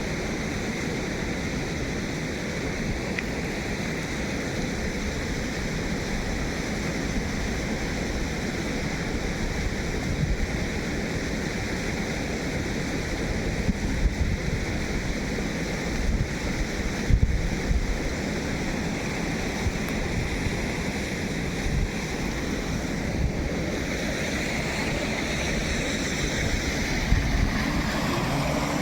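Steady rushing noise, with a few brief low thumps.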